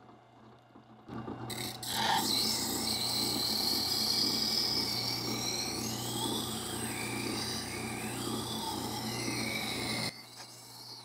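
Rikon 8-inch wet sharpener's grinding wheel turning with a steady motor hum while a kitchen knife's edge scrapes against the wet stone, with a faint wavering squeal, grinding a new edge on a dull, burred blade. It starts about a second in and cuts off suddenly near the end.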